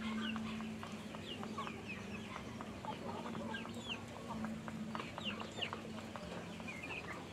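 A large flock of chickens clucking and calling, with many short, overlapping high calls that fall in pitch, over a low steady hum.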